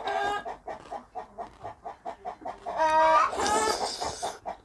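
Chicken clucking and squawking: a short call at the start and a louder run of calls about three seconds in, with faint clicks between.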